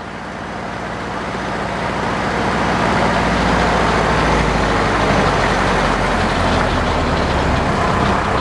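A tractor engine running a flat-belt-driven circular sawmill, the noise building over the first three seconds and then holding steady.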